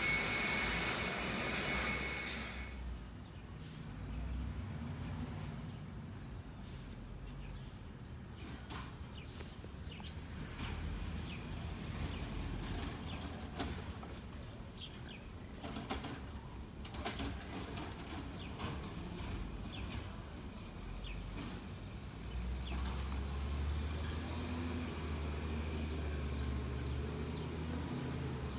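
A garbage truck's diesel engine rumbling down the street, with scattered clanks and a few faint bird chirps. About 22 seconds in the engine grows louder and a high whine climbs and falls. A rushing noise at the start stops abruptly about two and a half seconds in.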